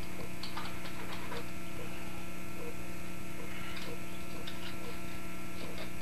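Steady electrical hum, with faint light taps and clicks of a child's plastic Play-Doh tools against the tabletop in two short spells.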